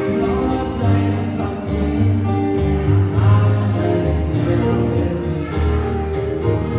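A song playing with a sung vocal line over bass, guitar and a steady beat.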